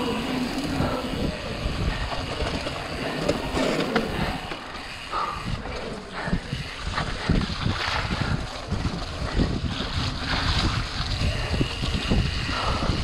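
Mountain bike ridden fast over a rough, muddy trail: steady wind noise on the microphone, with the bike's rattles and knocks over bumps, more frequent in the second half, and tyres running through wet mud.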